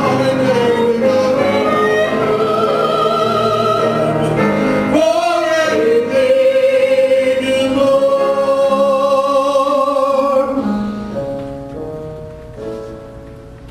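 Voices singing with musical accompaniment, holding long notes with vibrato. The music fades out about three-quarters of the way through.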